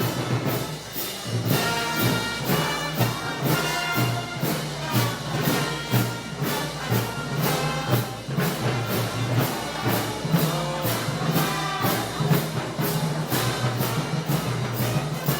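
Festival wind-band music: brass carrying the tune over drums that keep a steady beat of about two strikes a second.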